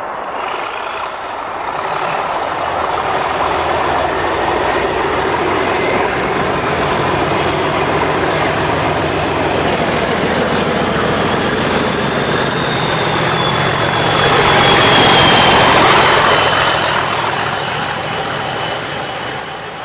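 Diesel locomotive engine running under load, with a high whine that rises slowly in pitch. A hiss swells up about fifteen seconds in.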